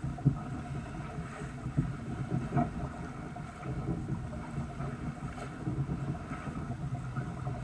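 Sailboat moving under sail: water rushing along the hull, with steady wind buffeting the microphone. A few brief bumps stand out in the first three seconds.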